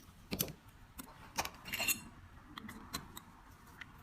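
A few separate small metal clicks and clinks from handling a windproof petrol lighter's parts during repair, the loudest between about a second and a half and two seconds in.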